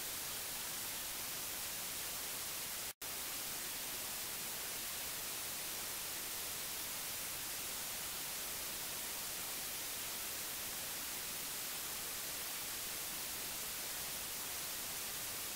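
Television static: a steady hiss of white noise, brightest in the high end. It cuts out for an instant about three seconds in, then carries on unchanged.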